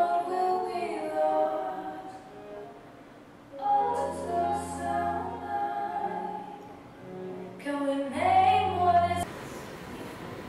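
Wordless singing voices, choir-like, holding long notes in three phrases with a steady low hum beneath the later two. It cuts off abruptly about nine seconds in.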